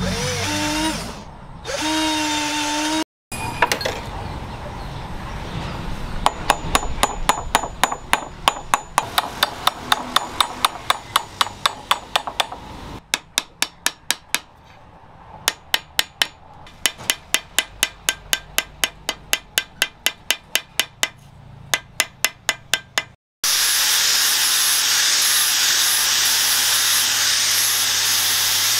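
A cordless drill whines briefly as it bores into a knife handle. After a cut, a hammer strikes the handle's metal fittings on an anvil in quick, even blows, about three to four a second, for roughly seventeen seconds. Near the end an angle grinder with a sanding disc runs steadily on the wooden handle.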